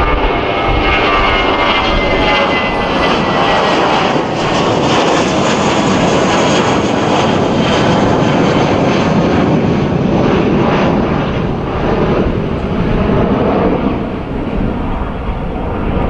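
Airbus A320 jet engines at climb thrust just after takeoff, a loud steady rumble with a faint high whine sliding slowly down in pitch over the first few seconds. The sound eases a little near the end as the airliner climbs away.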